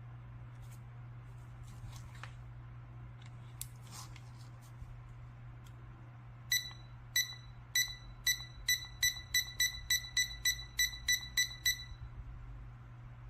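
LiKE4U C-601 digital fridge thermometer beeping: about fifteen short high beeps, at first about half a second apart, then speeding up to three or four a second before stopping. A few faint clicks come before the beeps.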